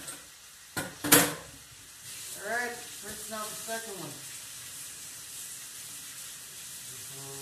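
Beef sizzling as it sears in a pan: a steady hiss that grows louder about two seconds in. Two sharp knocks come about a second in, the second the loudest sound, and a faint voice is heard briefly.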